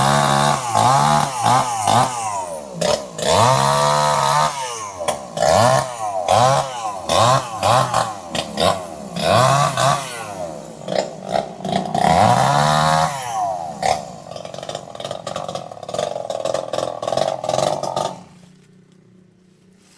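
Two-stroke chainsaw engine revved up and down over and over, its pitch rising and falling about once a second. It cuts off abruptly near the end.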